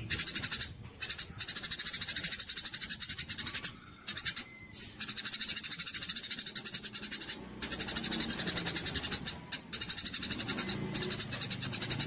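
Small songbird giving a rapid, high ticking chatter, many notes a second, in bursts of one to three seconds with short pauses between them.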